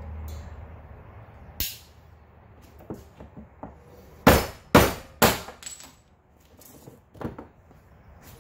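Hammer blows on a steel bottom bracket spindle, knocking the old bearing's inner ring off. There is a hard strike, a few light taps, then three hard blows about half a second apart and one more near the end, each a sharp metallic clink.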